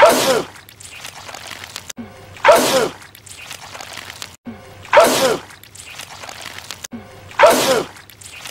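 A man's loud sneeze, the same sneeze repeated four times about two and a half seconds apart.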